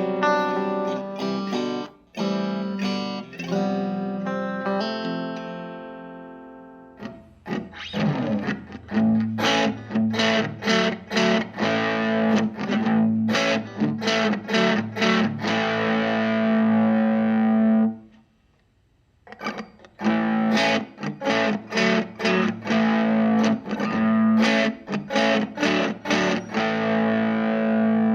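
Electric guitar played through a Vox AC4TV valve amplifier. A chord rings out and fades over the first few seconds, then comes rhythmic strummed chords, which stop briefly about two-thirds of the way through and then start again.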